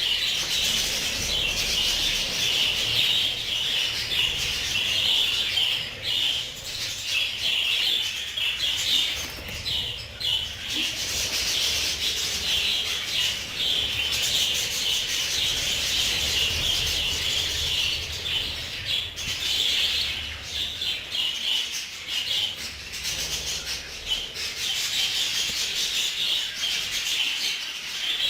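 A flock of budgerigars chattering continuously, many short high chirps overlapping into a dense warble.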